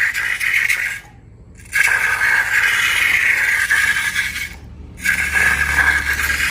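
Scraping and rattling from slime making, in three stretches broken by two sudden short drop-outs, about a second in and about four and a half seconds in.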